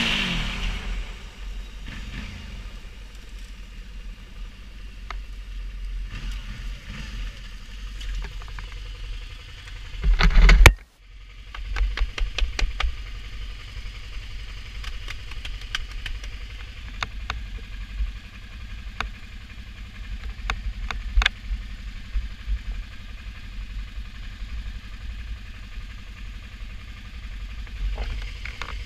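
Motorcycle engine idling and running at walking pace, with scattered sharp clicks and knocks. There is one loud knock about ten seconds in.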